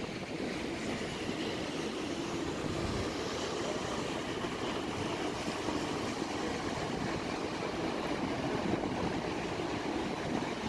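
Steady running noise of a moving vehicle: an even rumble and hiss with no distinct events.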